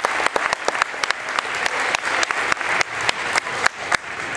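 Audience applauding in a school gymnasium at the end of a winterguard routine. The clapping thins out near the end.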